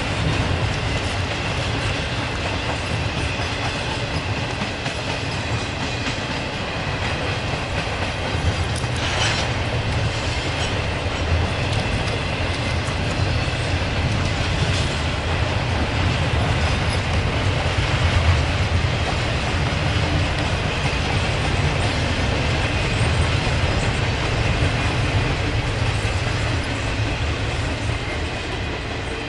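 Freight train cars rolling past at close range: steady wheel-on-rail noise with occasional knocks, easing off slightly near the end.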